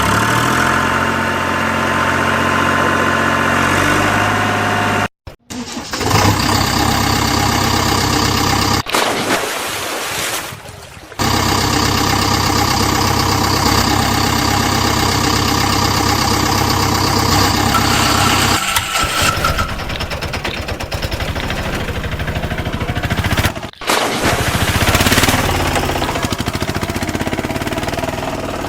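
Engine running, idling and changing pitch, over several clips joined by brief cuts.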